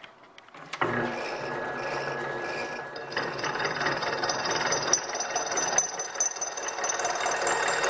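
Vertical milling machine running, its end mill cutting a cope (fishmouth) into a steel tube held at an angle in the vise. The spindle starts about a second in, and the cut comes in about three seconds in, making the sound denser and adding a steady high tone.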